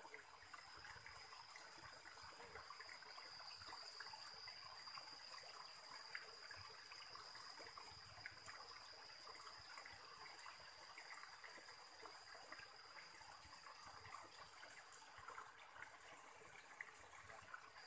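Faint stream water trickling over rocks into a pool, a steady hiss, with a thin high-pitched tone held throughout.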